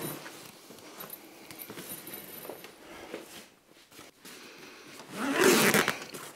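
Zip on a nylon folding-bike carry bag being worked closed, with the fabric rustling, and a louder, longer rasping pull about five seconds in.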